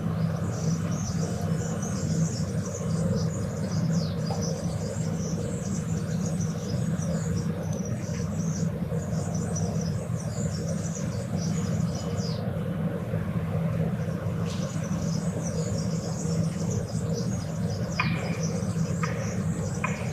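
Morning outdoor ambience: many birds chirping continuously over a steady low rumble of distant traffic. The chirping pauses briefly a little past the middle, and a few short, sharper sounds come near the end.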